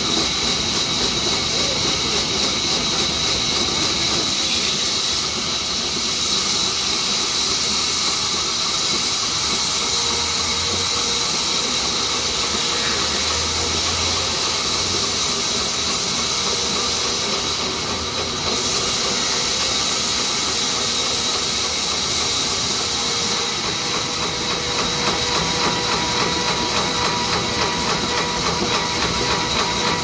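Large sawmill band saw cutting along a mahogany slab, a steady high hiss with a thin whine through it; the highest part of the hiss drops away briefly a few times.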